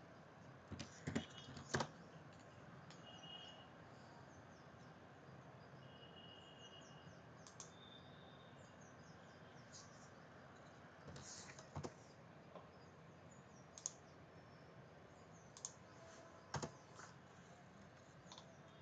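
Scattered computer mouse clicks and keyboard taps over quiet room tone, a pair about a second in and a few more spread through the second half. Faint, short bird chirps sound in the background in the first half.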